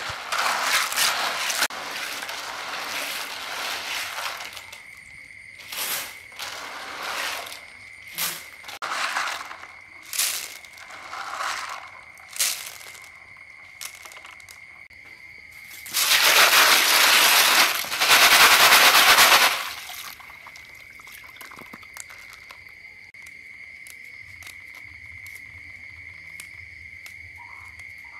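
Blood cockles being washed by hand in a plastic basin of water: shells clattering against each other as the water sloshes, then a series of short separate rattles and splashes. Just past the middle comes a louder rush of rattling and water lasting about three and a half seconds. After that the sound settles to a quiet background with a steady high tone.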